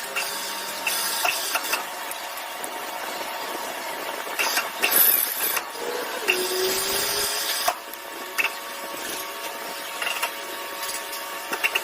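A machine running steadily with a constant hum, scattered clicks, and a short falling tone about six seconds in.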